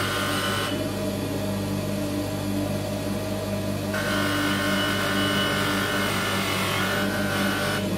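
Electric grinding wheel running steadily with a constant motor hum, as a metal tube is held against it. The higher grinding hiss of metal on the wheel comes and goes: it drops out under a second in and returns about halfway through.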